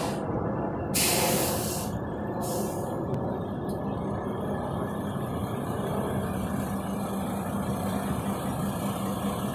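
Steady drone of heavy truck machinery running, with a few short bursts of hiss in the first three seconds and a steady hum coming in about halfway.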